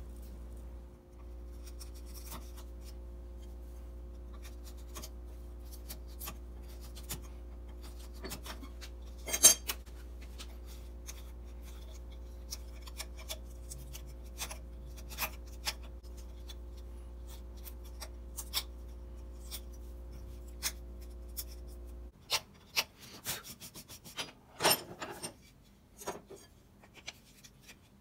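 A steel utility blade and a small hand tool scraping, clicking and tapping against a wooden saw handle held in a vise, in scattered short strokes, the loudest about a third of the way in and a cluster near the end. A steady low hum runs beneath and cuts off suddenly about 22 seconds in.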